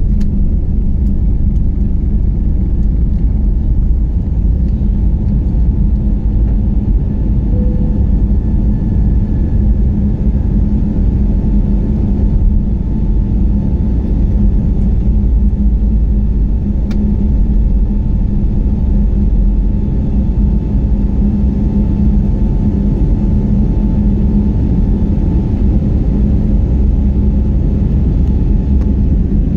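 Steady, loud rumble of an airliner's engines and rushing air heard inside the passenger cabin, holding an even level throughout with a faint steady hum above it.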